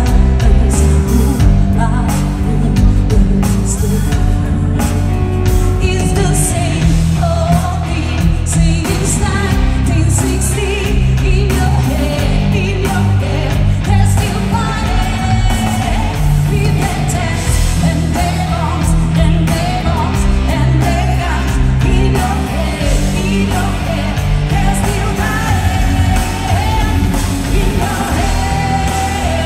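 Live rock band playing loudly: a woman singing lead into a microphone over bass guitar, drums and cymbals.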